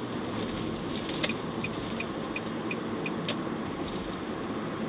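Steady road and engine noise of a car driving, heard from inside the cabin. A little over a second in, a series of six short high beeps sounds, about three a second, with a couple of faint clicks.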